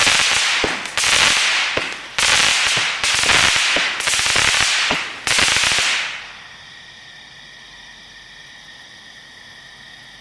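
96-shot consumer firework cake firing its last volleys of crackling stars: a dense crackle punctuated by separate shots about once a second, cutting off about six seconds in. After that only a steady high-pitched chorus of night animals remains.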